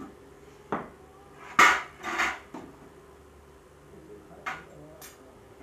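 Metal cooking pots and a serving spoon knocking and clinking: about six short knocks, the loudest about one and a half seconds in.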